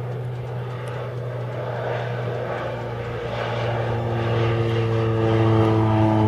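Propeller engine of a low-flying agricultural crop-spraying plane, a steady drone that grows louder as it closes in. A stack of steady tones rises out of it in the last couple of seconds.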